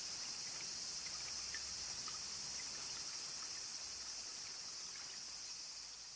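Steady high-pitched insect chorus with faint trickling spring water beneath it, slowly fading out toward the end.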